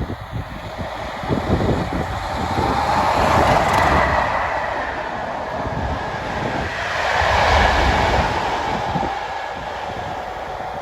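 A train passing at speed, its rushing noise swelling twice, about four and seven seconds in, with wind buffeting the microphone.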